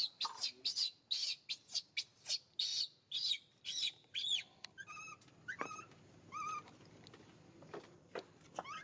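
Baby pigtail macaque crying: a fast run of short, shrill squeals, about three a second, then a few lower, wavering cries about halfway through that fade toward the end.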